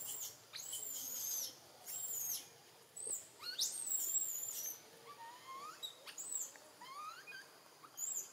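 Young macaque screaming: a string of shrill, rising-and-falling cries about once a second, typical of an infant's distress at being weaned.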